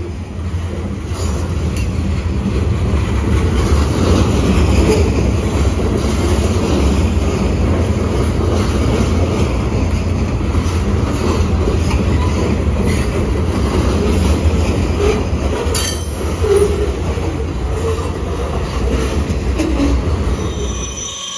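Loaded freight cars rolling past at slow speed: a steady low rumble of steel wheels on rail, with a few short wheel squeals and a sharp click about three-quarters of the way through.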